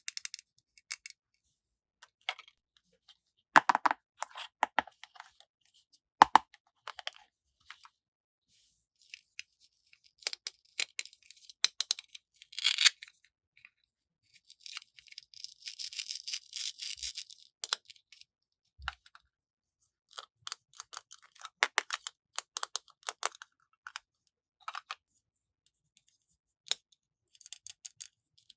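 Plastic toy pieces and packaging being handled during an unboxing: a long run of sharp clicks and taps, with a few seconds of crinkling or tearing packaging about halfway through.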